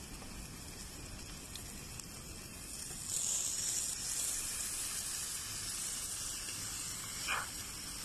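Chopped tomatoes sizzling in hot oil with fried onions and spices on a tava over a wood fire as they are tipped in. The sizzle grows louder about three seconds in, with a brief knock near the end.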